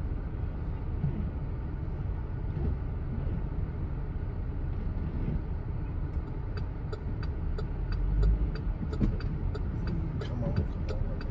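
Steady low rumble of a vehicle's engine and tyres heard from inside the cab as it creeps along in slow traffic. From about halfway through, a run of quick, sharp ticks, a few a second, joins the rumble.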